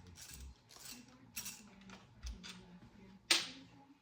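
Hand socket ratchet clicking in uneven strokes as tight bolts are worked loose on an LS engine, then one sharp metallic clank about three seconds in.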